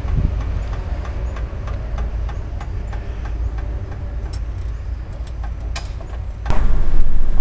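Railroad crossing signal bell ringing in regular strokes, about two a second, as the crossing gates rise after the train has passed, over a steady low rumble. Near the end comes one sharp click, followed by a louder rumble.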